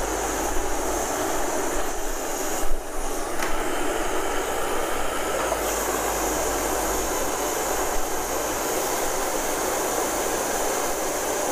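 Backpacking gas canister stove burner running with a steady hissing rush under a frying pan.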